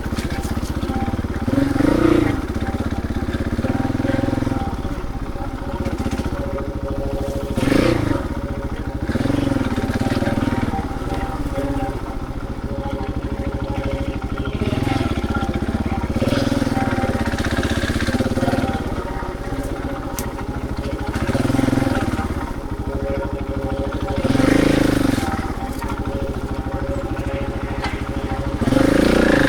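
Husqvarna 701 Enduro single-cylinder engine under way, the revs rising and falling again every few seconds as the throttle is opened and closed.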